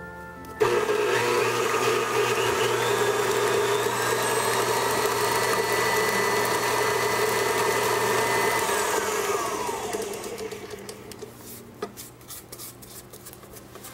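Electric stand mixer switched on suddenly about half a second in, running steadily as it creams shortening and sugar, then winding down with a falling whine about nine seconds in.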